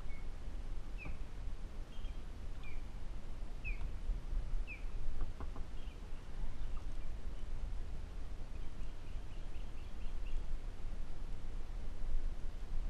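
Bird chirping: short falling chirps about once a second, then a quick run of rapid notes later on, over a steady low rumble.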